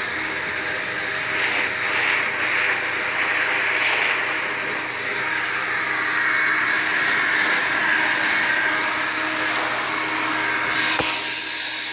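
Leaf blower running steadily, air rushing from its nozzle, with one brief click near the end.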